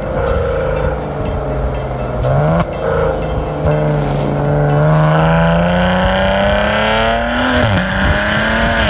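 Stock exhaust of a 2015 Maserati Ghibli SQ4's twin-turbo V6 in Sport Mode, picked up right at the tailpipes as the car accelerates. The engine note climbs steadily for several seconds, falls sharply near the end at a gear change, then picks up again.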